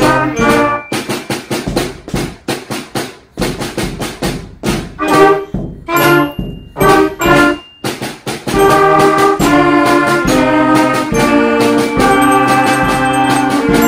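A beginner school band of clarinets, alto saxophones, trumpets, trombone, mallet bells and snare drum playing: short, detached chords with drum strokes for the first half, then long held chords from a little past halfway.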